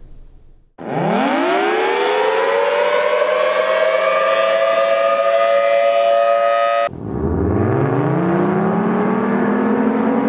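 Federal Signal Thunderbolt 1000T tornado siren winding up from a low growl to a steady wail. About seven seconds in it cuts off abruptly, and a much lower-pitched version of the same siren starts winding up again.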